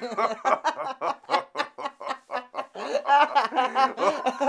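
Staccato laughter, a rapid string of short bursts about four to five a second, with music coming in about three seconds in.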